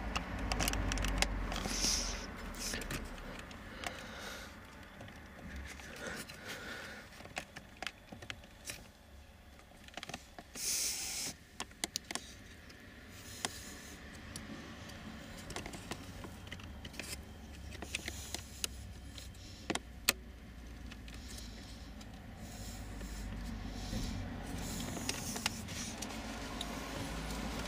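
Plastic wiring plugs being pushed into a BMW GM5 body-control module and their latches snapped shut, with scattered sharp clicks and knocks and the rustle of the wiring harness being handled.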